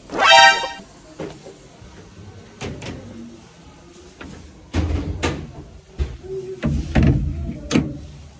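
Changing-cubicle doors being pushed open and handled: a short high squeak right at the start, then a series of clicks and knocks, heavier thuds in the last few seconds.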